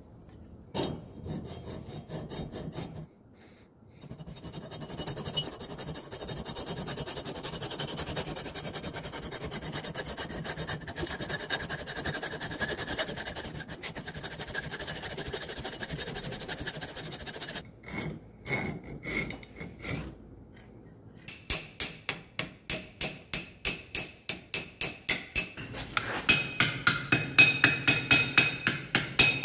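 Hand hacksaw cutting copper pipe clamped in a vise, with steady back-and-forth strokes. In the last third, a hammer strikes the cut copper on a steel anvil in a rapid run of blows, about three a second, some of them ringing, as the pipe is pounded flat.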